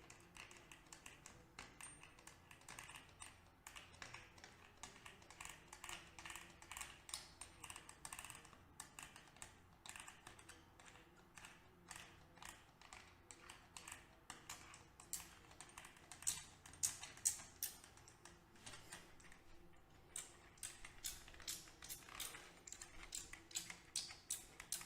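Faint, quick light clicks and taps, several a second and uneven, from transmission gears and small metal parts being oiled and handled.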